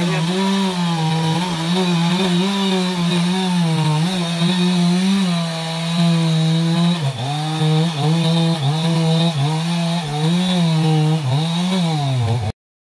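Stihl MS 381 two-stroke chainsaw running at full throttle while cutting into a banyan log. Its pitch sags and recovers again and again as the chain bogs in the wood, more often in the second half. The sound drops out briefly near the end.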